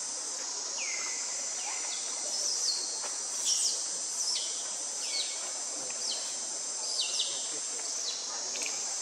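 Forest insects droning steadily at a high pitch, with a call repeated roughly once a second over it, each note sweeping down in pitch.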